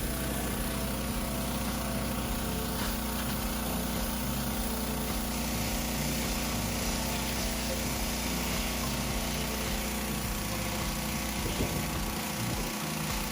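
Petrol pressure washer engine running steadily, a constant drone.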